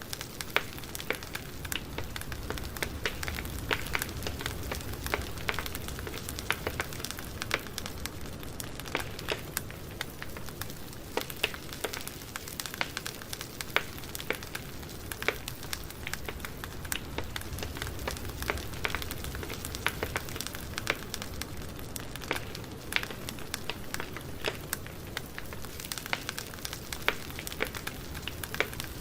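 Campfire burning: wood crackling with many small sharp pops and snaps scattered over a steady low rush of flame.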